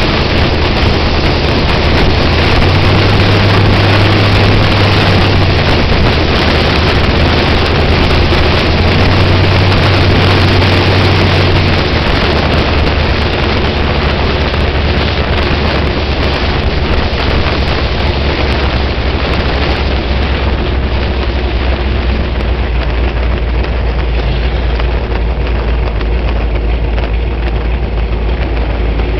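Sprint car's V8 engine, with eight open injector stacks, running loudly as the car drives on the street, with wind noise on the microphone. The low engine note steps down to a deeper, steadier drone about twelve seconds in.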